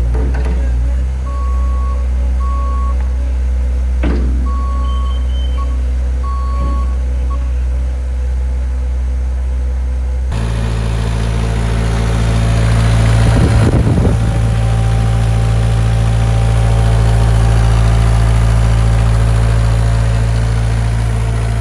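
Cat 216B3 skid steer loader's diesel engine running steadily, with a few knocks and an intermittent beeping warning alarm in the first half. About ten seconds in, the engine sound abruptly becomes louder and higher, swells briefly, then holds at the higher speed.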